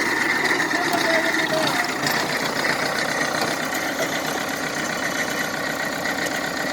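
Heavy equipment engine running steadily, with a steady high whine over it.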